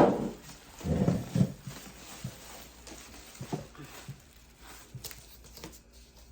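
Handling noise from unboxing a bread maker: a sharp knock at the start, a couple of low, dull sounds about a second in, then scattered light clicks and rustles.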